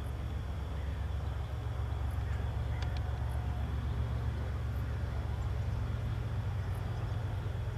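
Approaching DB class 101 electric locomotive and its EuroCity coaches: a low, steady rumble that grows slowly louder as the train comes closer.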